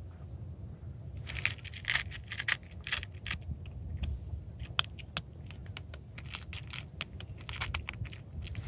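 Calico cat crunching dry kibble from a bowl: a quick, irregular run of crisp crunches and clicks, starting about a second in.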